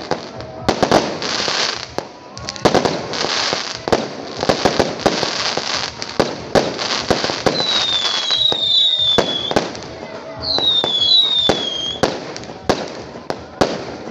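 Aerial fireworks going off one after another: many sharp bangs over dense crackling. High whistles falling in pitch come in two pairs, about halfway through and again a couple of seconds later.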